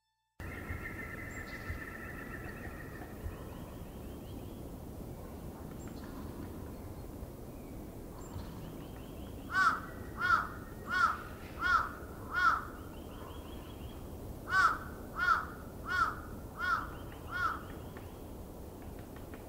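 A crow cawing in two runs of five harsh calls, each call a little under a second apart, the first run about halfway through and the second a few seconds later, over a steady outdoor background hiss.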